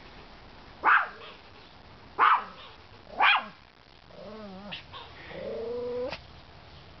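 Chihuahua barking up at a squirrel in a tree: three sharp barks about a second apart, then a wavering whine and a longer drawn-out whine that ends in a quick rising yelp.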